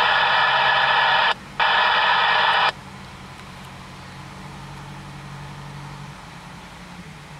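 Two long, loud, steady blasts of a fire engine's warning signal, the first about a second and a half and the second about a second, with a short break between them. A diesel engine then idles underneath.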